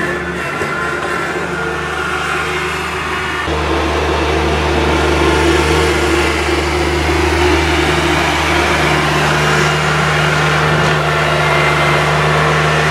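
Engine of a small snow-clearing machine running steadily at working revs while it clears deep snow; the hum gets fuller and louder about three and a half seconds in and then holds steady.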